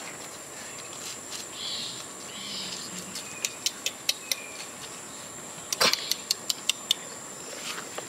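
Tropical forest ambience: a steady, high-pitched insect drone, with a quick run of sharp clicks, about four or five a second, in the second half.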